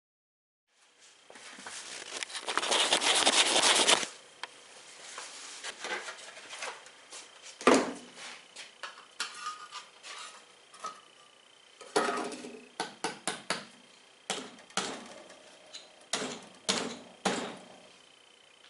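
A metal tool scraping and knocking at the soft, sandy concrete-like fill inside a steel safe door, chipping it out: a loud scrape for a few seconds, then a run of sharp clicks and knocks with crumbling bits rattling.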